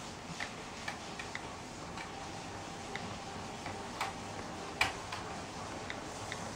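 HO scale model passenger train rolling along its track, its wheels clicking irregularly over the rail joints, over a steady low hiss. The sharpest click comes about three-quarters of the way through.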